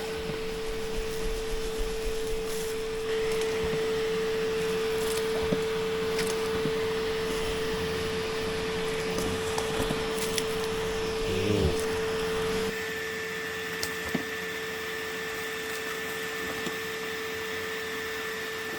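A small electric motor running with a steady, high-pitched hum. The sound changes abruptly about thirteen seconds in, after which a fainter, higher whine joins it.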